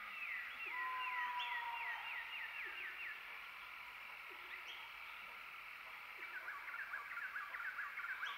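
Birds calling over a steady high background hum. A run of quick falling chirps, about four a second, comes with a held whistle in the first few seconds. A fast chatter of chirps follows near the end.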